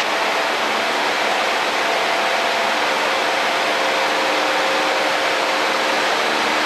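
Cessna 152's four-cylinder engine and propeller in a steady climb at about 2,300–2,400 RPM, heard inside the cockpit as an even drone with a faint steady hum of engine tones.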